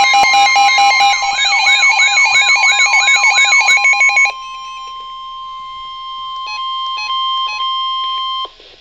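Layered electronic alarm sounds, a repeating falling wail over warbling beeps and rapid clicks, for about four seconds. They give way to a single steady alert tone near 1 kHz that holds for about four seconds and cuts off shortly before the end: the NOAA Weather Radio warning alarm tone that precedes a severe weather alert.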